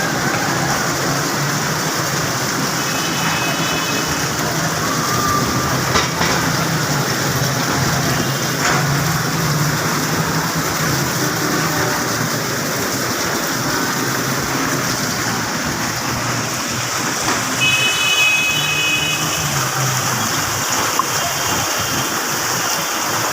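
Heavy rain pouring steadily, mixed with road traffic. Short high electronic-sounding tones come twice, about 3 seconds in and again around 18 seconds.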